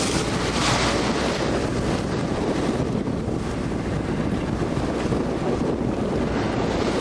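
Wind buffeting the microphone over the rush of sea water along a sailboat's hull, with the boat's engine running as a steady low drone underneath while it motor-sails.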